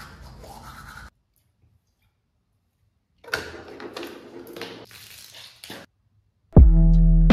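A toothbrush scrubbing teeth in quick back-and-forth strokes. It cuts off about a second in and picks up again after about three seconds. Near the end a louder lo-fi beat starts with a steady bass note and drum hits.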